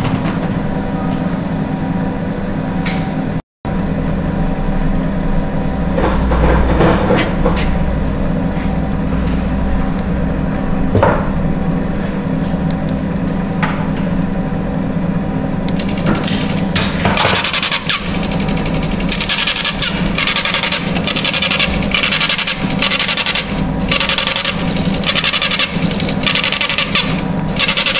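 Heat deflection and Vicat softening point test apparatus running with a steady hum. About sixteen seconds in, its built-in printer starts printing the test results in a fast run of short stop-start strokes.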